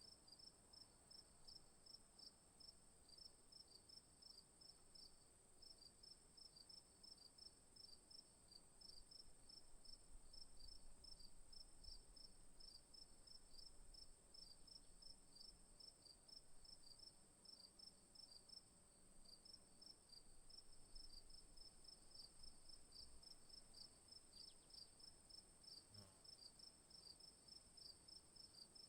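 Faint insects chirping: a steady high-pitched drone under a rapid, evenly repeated chirp, several chirps a second.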